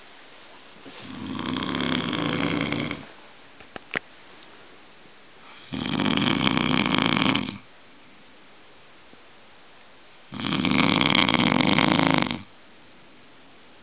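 A sleeping man snoring heavily: three long, loud snores about four to five seconds apart, each lasting about two seconds.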